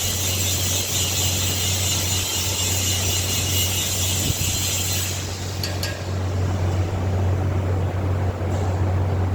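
Electric arc welding: a steady low hum from the welding machine, with the high hiss of the arc over it that cuts off about halfway through, followed by a few sharp clicks.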